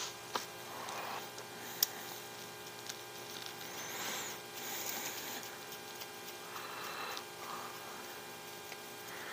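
Steady electrical mains hum, with faint clicks and soft handling noise of small RC crawler axle parts being fitted by hand; one sharp click comes a little under two seconds in.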